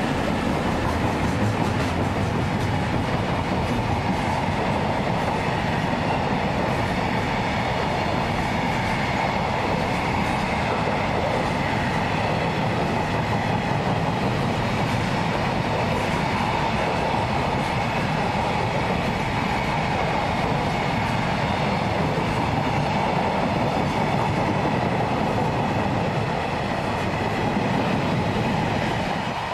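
Container freight train hauled by an EF65 electric locomotive passing at speed: the locomotive goes by at the start, then a steady rumble of the container wagons' wheels running over the rails.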